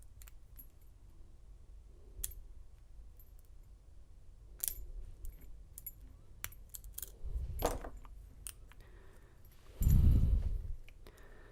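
A lock pick and tension wrench working the pin stack of a Schlage lock's American core, giving scattered small sharp metallic clicks. Near the end comes a louder low thump and rattle of handling, about a second long.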